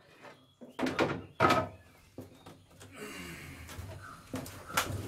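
Hollow knocks and bumps of a canoe's hull and wooden paddle against the concrete and inside the boat as a paddler climbs out onto a ledge, echoing in an enclosed concrete chamber. The loudest knocks come about a second in, with another near the end.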